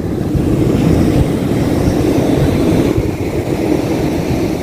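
Steady, heavy rumble of breaking surf with wind buffeting the microphone, easing off near the end.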